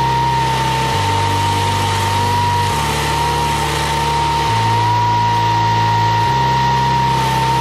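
Tracked stump grinder's engine running steadily with a constant high whine, under background music whose low bass line changes note about every two seconds.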